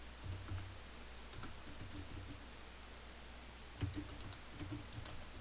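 Faint typing on a computer keyboard: irregular, quick keystrokes, with one louder tap a little under four seconds in.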